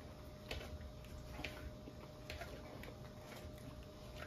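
Faint, regular ticking, about one tick a second, over a faint steady hum.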